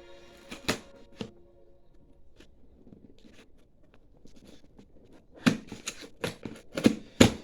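Scissors snipping and cutting through packing tape on a cardboard box: a few sharp snips early, a quieter stretch, then a quick run of snips and clicks near the end.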